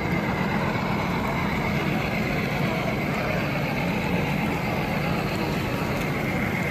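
Engine sound from an HO-scale Union Pacific diesel locomotive model's sound system: a steady diesel rumble as the model runs past.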